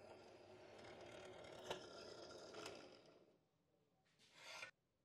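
Drill boring into the head of a rusted steel bolt, a faint steady whir with a couple of sharp clicks that dies away about three seconds in. A short scrape follows near the end.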